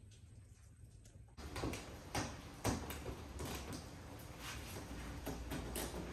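A run of irregular clicks and knocks from tools and parts being handled at a car's front wheel hub, with the brake rotor exposed. It starts about a second and a half in, after a faint low hum.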